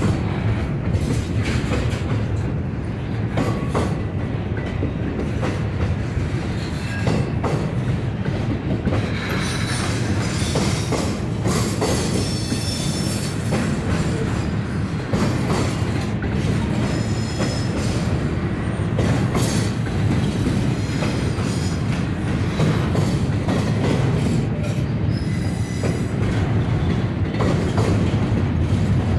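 A freight train's cars rolling past in a continuous rumble, steel wheels clattering over rail joints, with brief high-pitched wheel squeals now and then.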